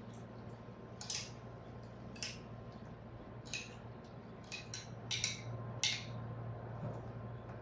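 A spoon scraping and clicking against a metal compartment food tray as rice and food are scooped up: several short scrapes, bunched together a little after halfway, over a steady low hum.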